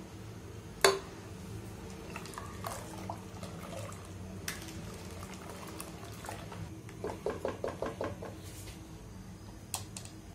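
Spatula stirring milk in a metal pot, knocking sharply against the pot once about a second in, with a quick run of light taps and scrapes against the pot's side a few seconds before the end.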